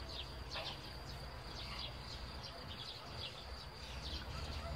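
Small birds chirping in the background, short high chirps about twice a second, over a low steady hum.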